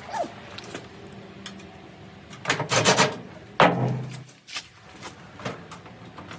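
Sheet-metal cabinet panels of a GE/Hotpoint clothes dryer knocking and rattling as they are handled: a quick run of clattering knocks about two and a half seconds in, then one sharp bang a second later that rings briefly with a low hum.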